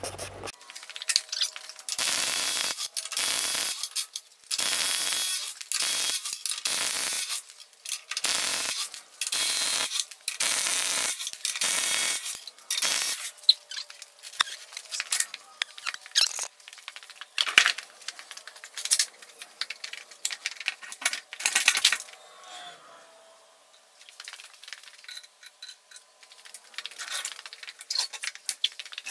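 An impact wrench running in about ten short bursts, one after another, loosening a truck wheel's lug nuts. After that come scattered metallic clinks and clicks of nuts and tools being handled.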